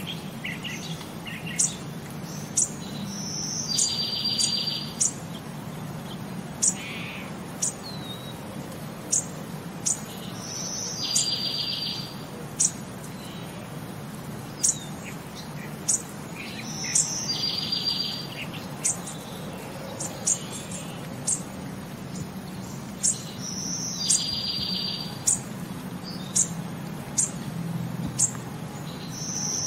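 Birdsong: short high chirps about once a second, and a trill lasting about a second that comes back at even intervals every six to seven seconds, over a low steady hum.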